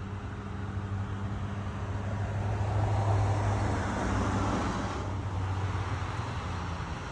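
A car passes on the road, its tyre and engine noise swelling and fading about three to five seconds in, over a steady low hum.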